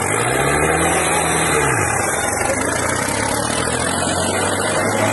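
New Holland tractor's diesel engine revving up and back down over about the first two seconds, then running at a steady speed.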